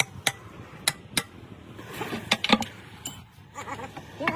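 Metal being struck with a hammer: four sharp, clinking strikes in the first second or so, the tail of a steady run of blows, then a pause with brief voices.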